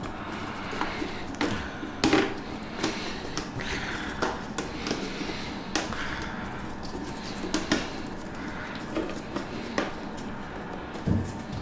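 Irregular clicks and knocks of toilet syphon parts and washers being handled and fitted together, the loudest knock about two seconds in and another near the end.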